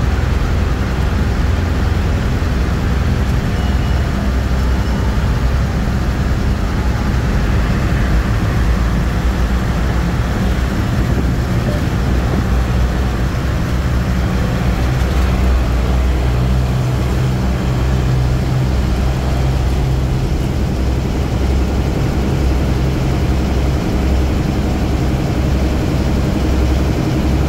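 Steady low rumble of engine and tyre noise heard from inside a vehicle driving through a road tunnel, with a constant hum and no breaks.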